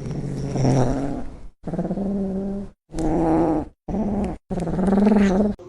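A cat giving a series of about five low, drawn-out yowls, each under a second long with short pauses between them.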